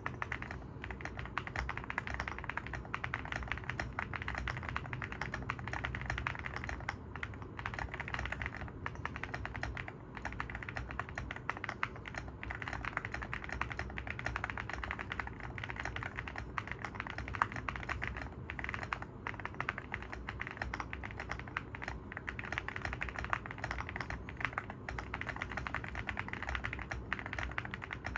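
Continuous fast typing on an Evoworks EVO80 mechanical keyboard with a polypropylene plate and Oat linear switches: a dense stream of key clacks with no pauses longer than a moment.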